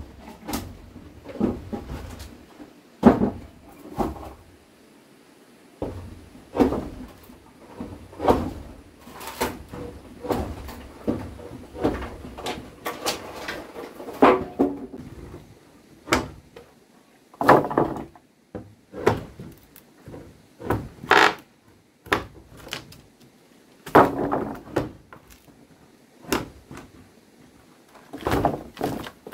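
Repeated irregular knocks and thuds, roughly one or two a second, with short clattering tails between some of them.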